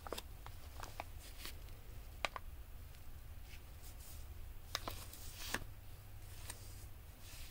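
Paper and card being handled: scattered soft rustles and light clicks and taps, over a steady low hum.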